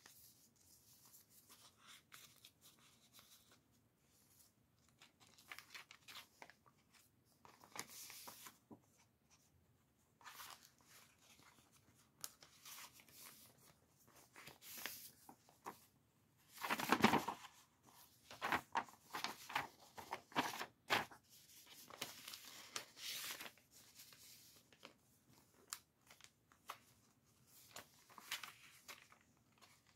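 Paper pages and tags of a chunky handmade junk journal being handled and turned, with on-and-off rustling and crinkling of paper; the loudest rustle comes a little past the middle.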